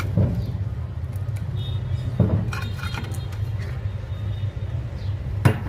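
Electric water pump motor running with a steady low hum, while metal parts clink and knock a few times, loudest about two seconds in and near the end.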